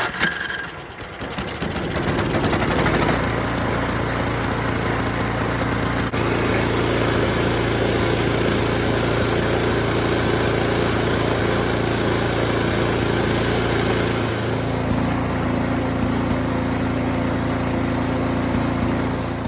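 Troy-Bilt snowblower's single-cylinder four-stroke engine running steadily with its crank and cam gear timing marks realigned, which cures its piston bang and locked pull start. Its pitch shifts about 14 seconds in.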